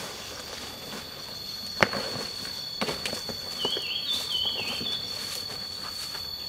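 Footsteps and rustling through leafy forest undergrowth, with a sharp snap about two seconds in. A steady high insect drone runs underneath, and a short warbling bird call comes in the middle.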